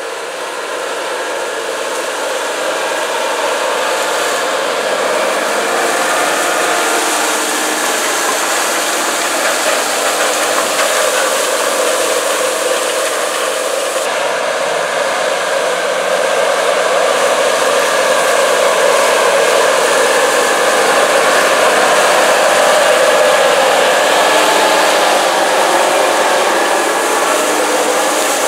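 Case IH Steiger 370HD's six-cylinder turbocharged diesel engine working steadily under load while pulling a disk ripper through corn stalks, with the noise of the tillage tool in the soil; it grows louder over the first few seconds as the tractor approaches.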